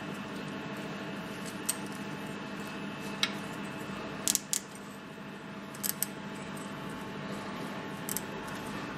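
Short sharp metallic clicks and clinks of hand and tool on a rusty brake caliper carrier held in a bench vise, seven or so scattered through, the loudest pair about four seconds in, over a steady background hum.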